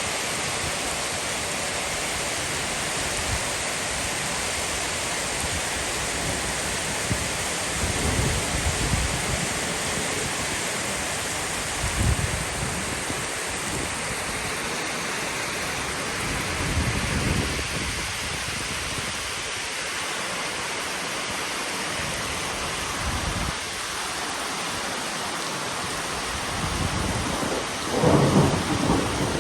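Heavy rain falling steadily in the year's first rainstorm, with several low rumbles of thunder; the loudest rumble comes near the end.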